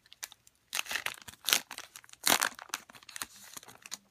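Plastic foil wrapper of a Score football card pack crinkling and tearing as it is opened, in about four short rustles.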